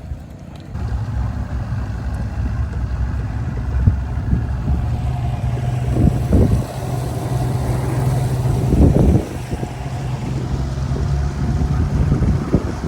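Boat's outboard motor running steadily under way, a low, even hum that comes up about a second in, with wind buffeting the microphone and louder gusts twice.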